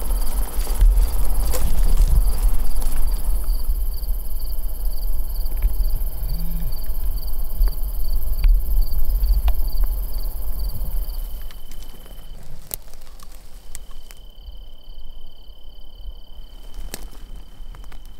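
Field insects calling: a steady pulsing chirp throughout, joined about two-thirds of the way in by a continuous high trill, over a low wind rumble on the microphone.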